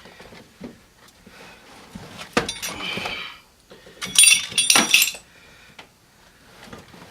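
Old molded car carpet being worked loose from the floor pan: a knock and a scrape, then a loud cluster of sharp metallic clinks about four seconds in.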